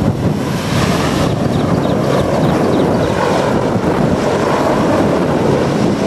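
Mil Mi-26 heavy transport helicopter lifting off and climbing, its eight-blade main rotor and turbine engines making a loud, steady rushing noise.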